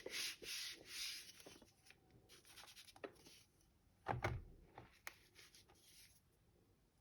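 Reformed gym chalk being crushed and rubbed: soft gritty crunching and rubbing strokes at first, then a few sharp clicks and one louder knock about four seconds in, fading toward quiet near the end.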